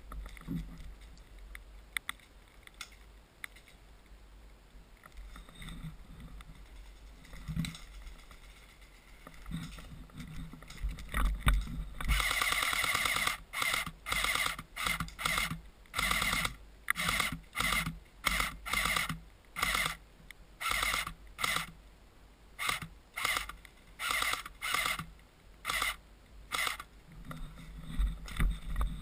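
Electric airsoft gun firing many short automatic bursts, each a buzzing rattle about half a second long, coming roughly once a second from about twelve seconds in. Before that there is only quiet rustling and wind on the microphone.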